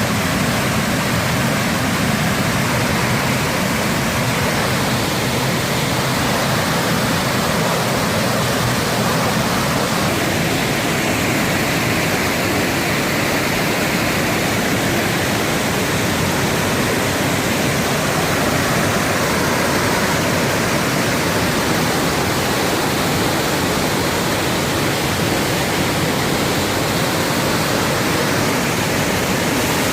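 Steady, loud rush of falling water from a waterfall, unbroken throughout.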